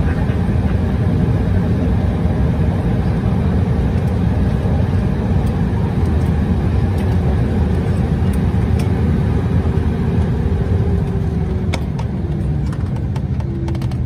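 Jet airliner's engines running at taxi power, a steady low rumble and hiss heard from inside the passenger cabin as the aircraft rolls slowly across the apron after landing. The noise eases slightly near the end.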